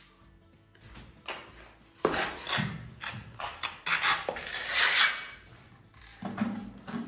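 Irregular clinks, knocks and scrapes of hand tools and building materials during tiling and rendering work, starting about two seconds in, with faint music underneath.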